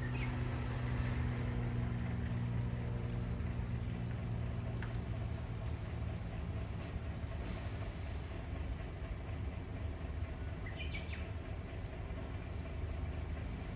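Steady low rumble of a motor vehicle, with an engine hum that fades away over the first few seconds. A short bird chirp comes a little after ten seconds.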